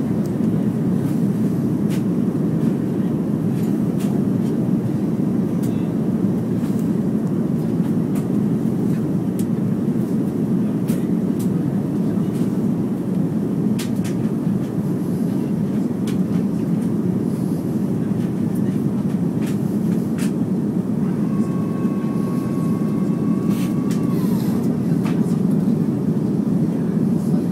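Steady low rumble of airflow and engines inside the cabin of a Boeing 737-300 with CFM56-3 engines, descending to land. About twenty seconds in, a thin steady whine with overtones comes in, holds for about three seconds, then falls away.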